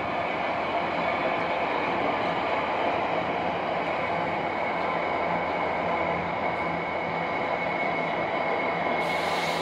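Freight train rolling past at steady speed, its wagons making a continuous rumbling rush with a thin steady high tone through it. A brief hiss comes near the end.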